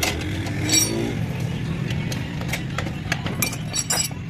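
Steady low engine rumble with scattered metallic clinks and taps.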